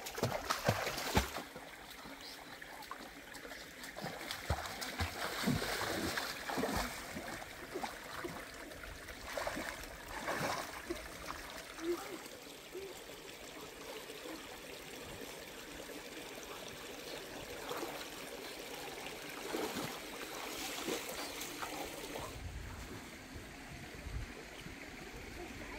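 Splashing in a shallow rocky stream as a person thrashes about in the water, over a steady trickle of flowing water.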